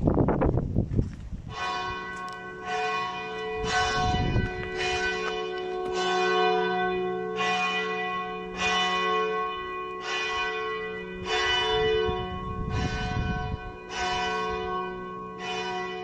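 Loud abbey church tower bell tolling steadily, one bell struck about every second, starting a second and a half in and ringing on. There is a brief low rumble in the first second.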